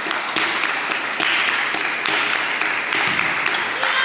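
Rhythmic clapping, about three claps a second, over a steady crowd noise.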